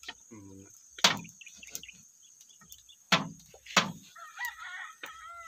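A knife chopping grilled chicken on a wooden board: three sharp chops, with chickens clucking near the end.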